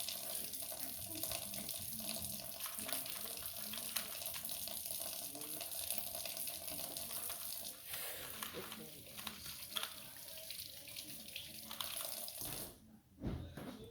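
A steady hiss of rushing noise, with faint voices and light clicks underneath; it cuts off sharply near the end.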